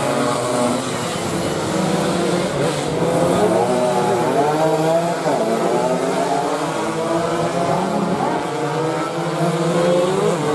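Several two-stroke 116 cc underbone (moped-style) racing motorcycles revving hard as they race through the corner and pass. Their overlapping engine notes rise and fall as the riders shift and accelerate.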